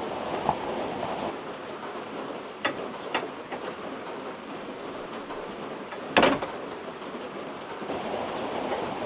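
Steady rain falling, with two light clicks a few seconds in and one louder sharp knock about two-thirds of the way through.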